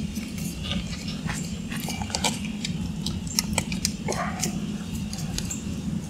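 Scattered small clicks and ticks of plastic rim protector pieces being handled and pressed onto the edge of an alloy wheel rim, over a steady low hum. A brief pitched, voice-like sound comes about four seconds in.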